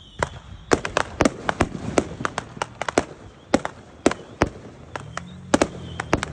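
Fireworks and firecrackers going off around the neighbourhood: a rapid, irregular string of sharp pops and bangs, several a second. A low steady hum comes in about five seconds in.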